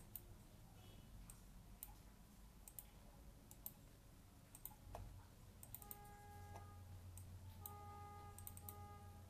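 Faint, irregular clicks of a computer mouse button, some in quick clusters, over near silence. A faint steady tone with overtones comes and goes in the second half.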